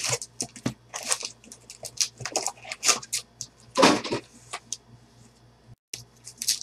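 Foil-wrapped trading card packs being handled and stacked on a table: a run of short crinkles and clicks, with one heavier thump about four seconds in.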